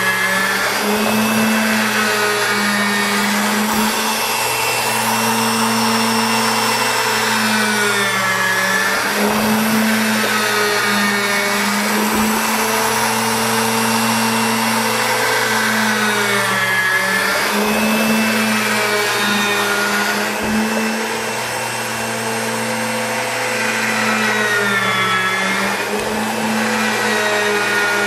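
Electric motor of a home-made agitator running steadily, churning hot water and Simple Green in a PVC soaking tube. Its hum dips briefly in pitch about every eight seconds.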